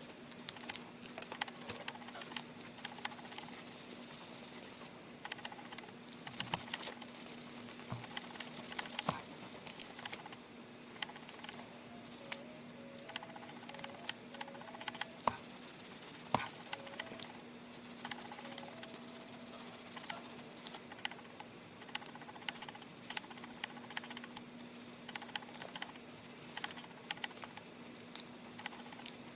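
A towel wiping and rubbing the plastic casing of an old mobile phone, with many small clicks and taps as the phone and its buttons are handled during cleaning.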